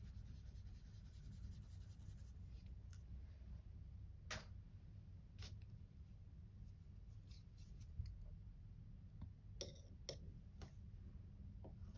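Very quiet, with a low steady hum. In the first couple of seconds there is a faint scratchy rubbing of an ink-soaked cotton swab being dabbed across paper, followed by a few faint, scattered clicks and taps as the paper is handled.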